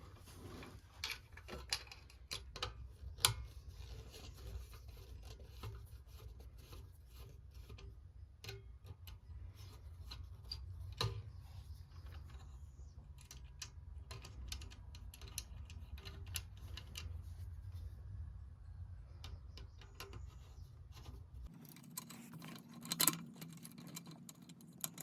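Irregular small metal clicks, ticks and scrapes of hand tools and small fittings being handled, with a sharper cluster of clicks near the end.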